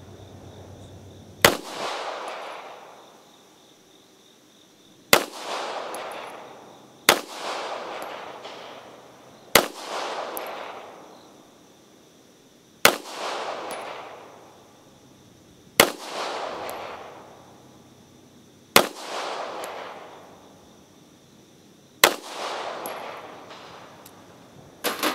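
Beretta M1951 9mm pistol firing eight single shots of cast-bullet handloads, two to three and a half seconds apart, each shot followed by an echo that dies away over about a second and a half. A faint click comes just before the end.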